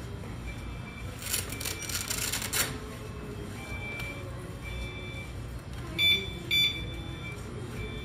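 Two loud, short electronic beeps about six seconds in, half a second apart, from a Curbell CareSense easy-release wheelchair seatbelt alarm: the two-beep signal that the belt's tab is back in its slot and the alarm is properly reconnected. Before that, a scratchy rasp of the hook-and-loop strap being handled, and fainter single beeps every second or so.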